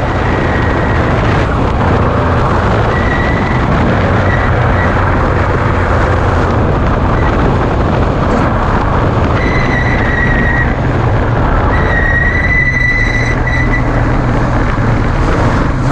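V8-powered Ford Ranger desert race truck running hard over rough dirt, heard from inside the cab: steady engine and drivetrain noise under heavy road and wind rumble. A high whine comes and goes several times.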